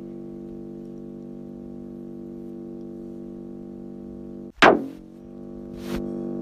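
A steady, electronically processed drone of several held pitches. About four and a half seconds in it breaks off for a moment under a loud, sharp zap that sweeps quickly down in pitch, then the drone returns with a short hiss near the end.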